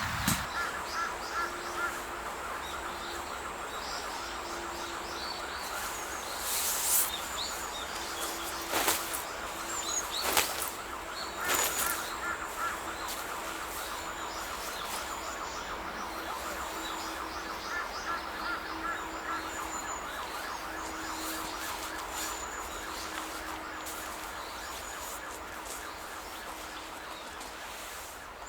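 Outdoor ambience: small birds chirping high over a fast, steady trill, with a low steady hum that comes and goes. A few sharp pops stand out between about 7 and 12 seconds in.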